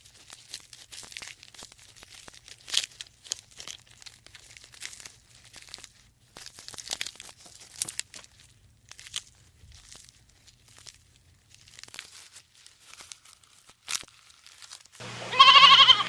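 Irregular crunching and crackling clicks for about fifteen seconds. Near the end a loud, wavering animal bleat begins suddenly.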